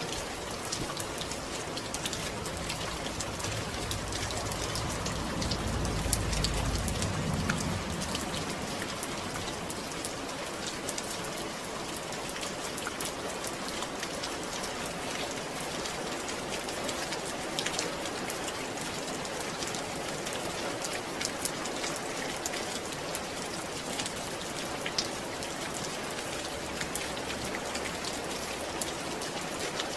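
Steady rain falling, an even hiss dotted with many small drop ticks. A low rumble swells briefly about five to eight seconds in.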